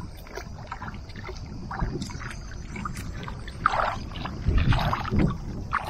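Water lapping and splashing right at a camera held just above the sea surface, over a low rumble of wind on the microphone. The splashes come irregularly and grow louder in the second half.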